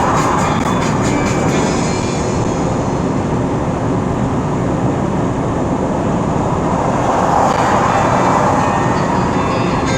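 Steady road noise of a vehicle travelling at highway speed: tyre and engine rumble, swelling a little about seven seconds in.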